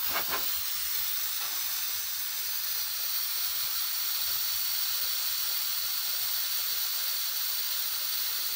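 Butane vapour hissing steadily out of a small 8 oz butane canister as its valve is held open to bleed air from it partway through refilling.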